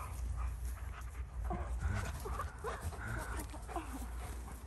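Alaskan Malamute making a string of short, whiny vocal noises that bend up and down in pitch during rough play, most of them from about a second and a half in.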